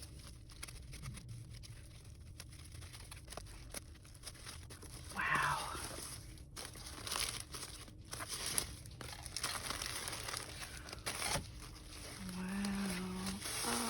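Paper packaging crinkling and rustling as it is unwrapped by hand, in scattered bursts with a louder rustle about five seconds in. A short hummed voice sound comes near the end.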